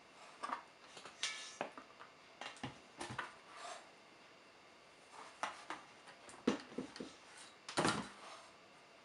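Scattered light clicks, knocks and rustles of handling an ash vacuum cleaner and its corrugated hose, with the motor off; the loudest knocks come about six and a half and eight seconds in.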